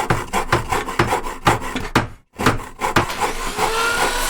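A hand tool worked back and forth on wood in quick rhythmic strokes, about three or four a second, with a brief cut to silence just past two seconds in; near the end the strokes give way to a steadier rushing noise with a faint gliding tone.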